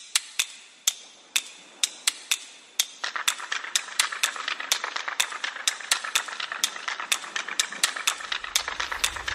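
Percussive intro of a background music track: sharp clicks about two a second, joined about three seconds in by faster, denser clicking over a hiss, with a low hum coming in near the end.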